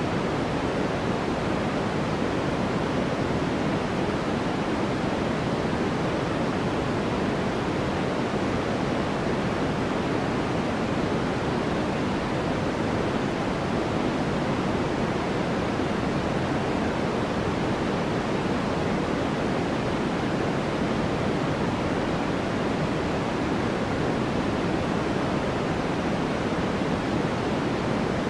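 Steady white noise for sleep: an even, unbroken hiss that never changes, fuller in the low and middle range than in the highs.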